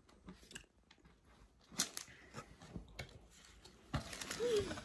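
People eating cake: soft chewing with small clicks of spoons against plastic cake containers, and a brief hum of voice near the end.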